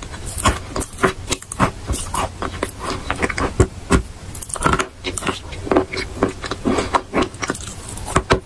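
Close-up crunching of a piece of chalk coated in dark paste as it is bitten and chewed: many sharp, irregular crunches in quick succession.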